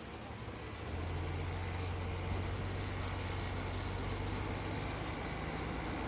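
Automated side-loader garbage truck's engine running, its low steady drone rising and strengthening about a second in, then holding under load.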